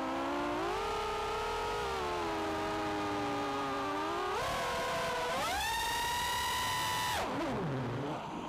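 Racing quadcopter's RCX 2205 2633kv brushless motors spinning DAL 5045 props on a 4S battery, heard from the onboard camera: a whine whose pitch follows the throttle. It sags and recovers, climbs steeply to a high pitch about five seconds in and holds there, then falls and dips twice near the end as the throttle is chopped and punched again.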